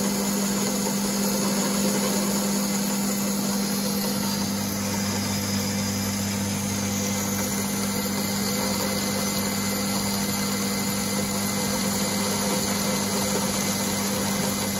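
Myford ML-7 lathe running under power feed, the tool taking a light cut on a metal boss: a steady motor hum, with a lower hum joining about four seconds in.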